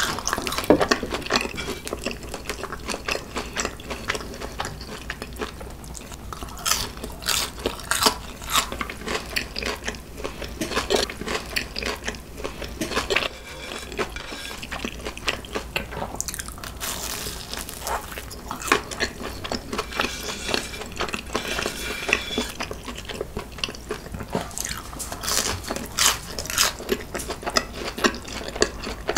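Close-miked eating of fried cheese balls dipped in seasoned chicken sauce: repeated bites and crunches with chewing and wet, sticky mouth sounds.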